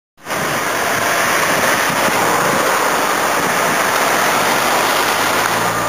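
Steady rushing road and wind noise of a vehicle driving through traffic, cutting in abruptly just after the start.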